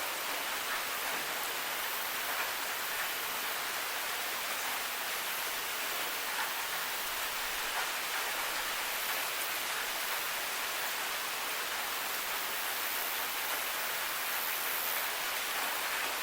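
Steady rain falling: an even hiss with scattered faint drop taps.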